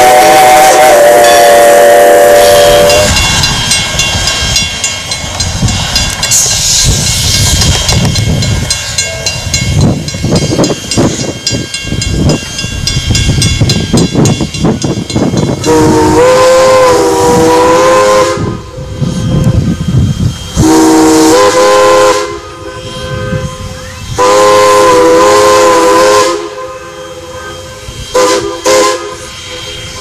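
Reading 6-chime steam whistle sounding a held chord that stops about three seconds in, followed by a steam train passing with hiss and rumble. Then a Crosby 3-chime steam whistle on Canadian National 2-6-0 No. 89 blows three main blasts, long, short, long, with shorter toots near the end.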